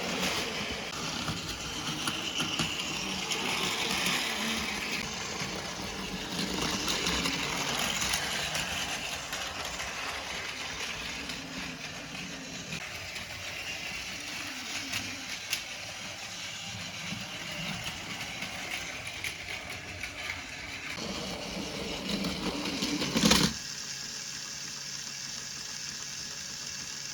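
Battery-powered Plarail Thomas toy train running on plastic track, its small electric motor and gears whirring steadily. A sharp knock comes near the end, after which the running sound stops.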